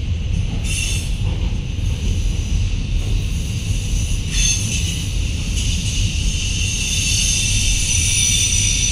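Freight train of autoracks and boxcars rolling past: a steady low rumble with high-pitched metallic squealing from the wheels, which grows stronger in the second half.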